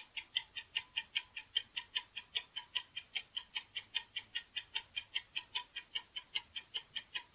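Clock-ticking sound effect marking a countdown: quick, even ticks, about five a second.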